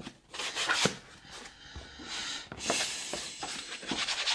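A damp cloth wiped in strokes over the plastic case of a Macintosh 512Ke, with a few light knocks as the cloth and machine are handled.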